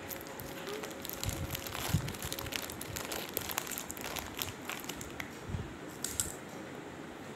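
Foil-lined plastic snack packet crinkling and crackling as a small child's fingers rummage in it for pieces; a quick irregular run of crackles that stops shortly before the end.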